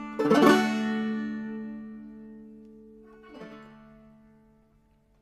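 Five-string banjo (Harley Benton BJ-55Pro, open C tuning with a capo at the second fret) ending a clawhammer tune with one last strummed chord about a quarter second in, which rings and slowly fades away. A faint scrape comes about three and a half seconds in while the notes are still ringing.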